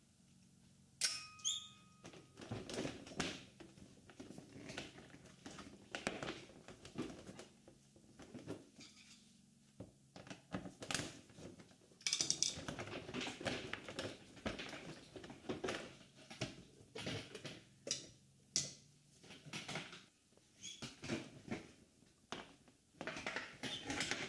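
Hands working the plastic lower fairing of a 2001 Yamaha R1 free: irregular clicks, taps and scraping of plastic panel and fasteners, with a short squeak about a second in. Near the end the panel comes away from the bike.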